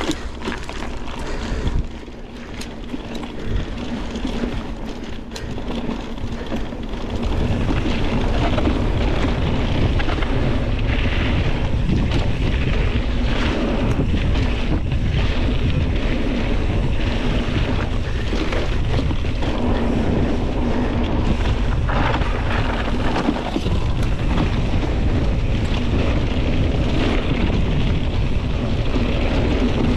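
A mountain bike riding a dirt and gravel trail, with wind buffeting the rider's camera microphone, tyres crunching and the bike rattling over bumps and roots. The wind noise gets louder about seven seconds in.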